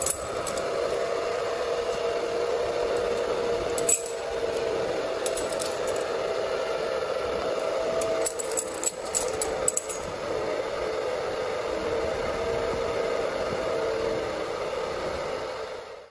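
Small metal keys clinking and jingling in a few short bursts, most of them in a cluster about halfway through, over a steady hiss with a faint hum.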